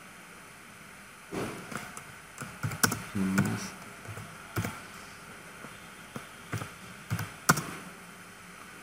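Computer keyboard keystrokes as a search query is typed, coming in irregular clicks and short runs with pauses between them.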